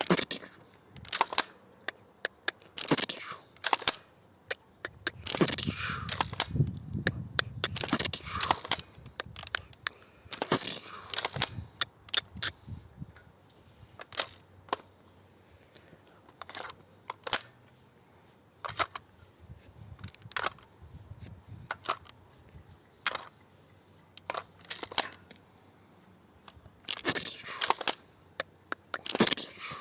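ASG Franchi Tactical airsoft shotgun being reloaded and handled: a string of sharp plastic-and-metal clicks and clacks at an uneven pace, with a busier stretch of clattering several seconds in.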